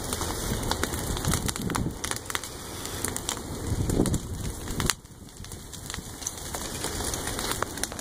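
Dry prairie grass and brush burning, the fire crackling with many sharp pops over a low rumble of gusting wind on the microphone. The rumble drops away suddenly about five seconds in.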